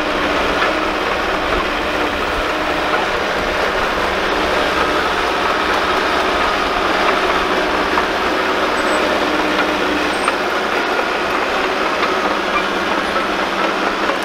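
John Deere 650J crawler dozer working under load: its diesel engine runs steadily while the steel tracks clank and the blade shoves hard, dry dirt.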